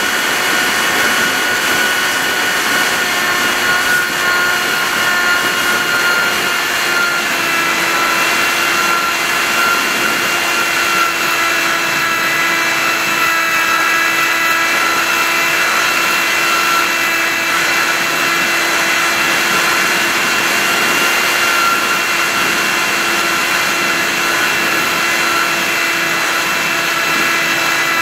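Radio-controlled model aircraft's motor and propeller running steadily in flight, heard from a camera mounted on the aircraft, a steady whine of several tones over rushing wind noise. The pitch steps up slightly about seven seconds in.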